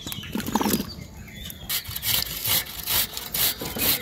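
A knife cutting cucumbers in quick, even rasping strokes, about four a second, which begin a little before halfway through, with fainter rubbing before them.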